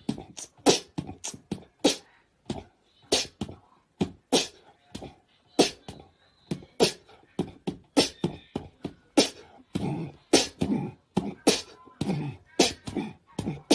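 A long, irregular run of sharp mouth pops and clicks, about three a second, made by a person in a beatbox-like way.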